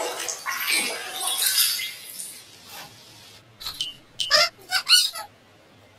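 Heavily distorted, effect-processed audio from a Talking Tom game clip. It opens with about two seconds of harsh noise, and then, just past the middle, comes a cluster of short squeaky pitched cries before the sound drops low.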